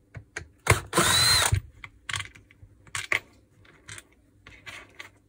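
A cordless screwdriver runs in one short burst about a second in, backing out a gearbox-housing screw on a rotary hammer. Scattered light clicks and taps follow as the screw and tool are handled.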